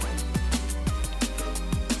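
Background music with a steady electronic beat: deep drum hits that slide down in pitch about twice a second, with quick ticking hi-hats above.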